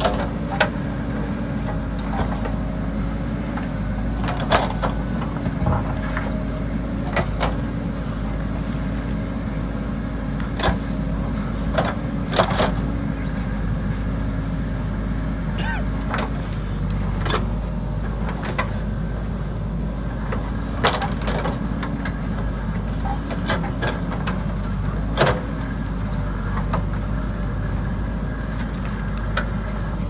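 JCB backhoe loader's diesel engine running steadily under load while it digs into the hillside, with irregular sharp clanks and knocks from the working bucket and soil and stones.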